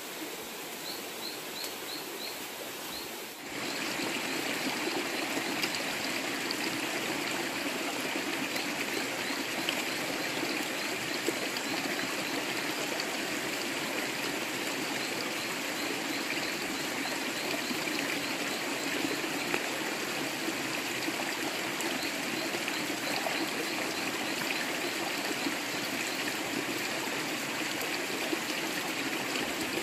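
Shallow stream running over rocks, a steady trickling rush that comes in at a cut about three and a half seconds in. Before that there is quieter outdoor ambience, and faint short high chirps come and go throughout.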